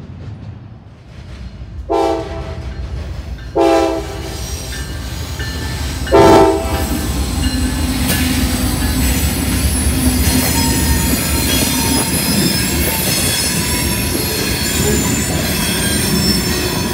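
A freight locomotive's horn sounds three short blasts, then the train rolls past close by: a steady rumble from the locomotive and wheels, with high squealing from the wheels on the rails as the hopper cars go by.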